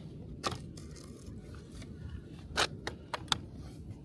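Light clicks and scrapes from hands handling e-bike parts: one click about half a second in, then a quick run of four near the end, over a low steady hum.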